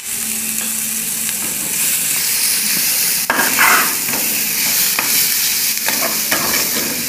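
Diced calabresa sausage, onion and green pepper sizzling as they fry in a metal pan. A metal spoon stirs them, with a few scrapes and knocks against the pan.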